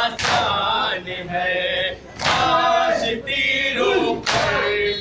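Crowd of men chanting a Muharram mourning lament (nauha) in unison, three times starting a new line with a sharp loud burst, about every two seconds.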